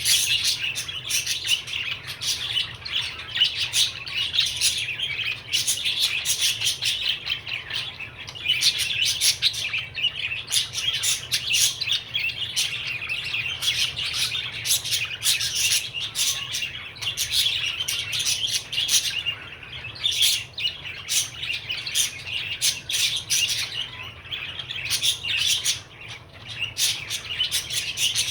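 Budgerigar chattering: a continuous run of quick chirps and warbling notes.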